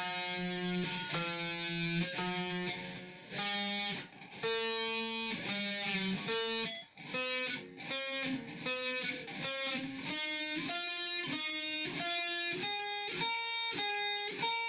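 Guitar playing a single-note lead fill slowly, one plucked note at a time. The notes climb higher and come a little quicker in the second half.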